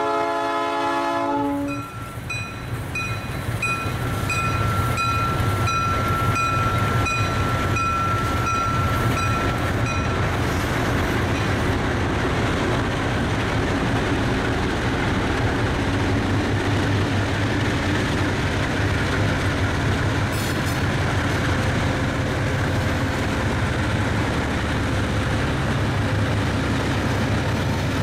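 Diesel freight locomotives pass close by with engines running and a low rumble of wheels on the rails. A chord of held tones cuts off in the first two seconds. For about the first ten seconds a level-crossing bell dings about one and a half times a second over a steady high squeal.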